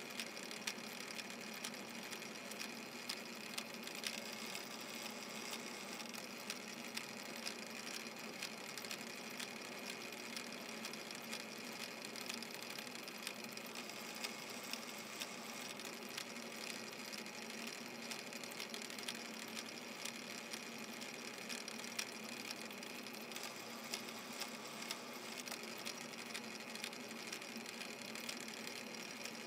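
Metal lathe running slowly in back gear during a thread-cutting pass: a steady mechanical whir with small, regular clicks about once a second.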